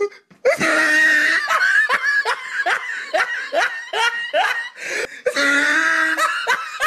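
A person laughing hard: a long drawn-out laugh, then a run of quick "ha-ha" bursts, about three or four a second, another drawn-out laugh, and more bursts near the end.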